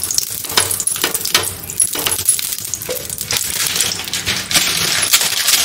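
Butter sizzling on a hot nonstick tawa, with a utensil repeatedly clinking and scraping against the pan. The sizzle grows stronger near the end.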